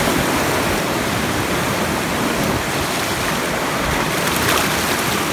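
Shallow mountain stream rushing over rocks and boulders: a steady, even rush of water.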